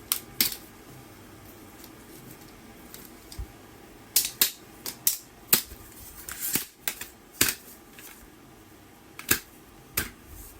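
Irregular sharp clicks and taps, as of hard objects being handled: two at the start, a quick run of them in the middle, and two more near the end.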